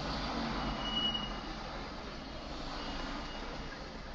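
Steady car and street traffic noise heard from inside a car, an even hiss over a low hum, with a faint short high whistle twice.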